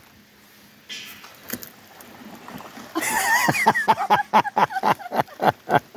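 Ducks calling in a quick run of short peeps that fall in pitch, about four a second, starting about three seconds in.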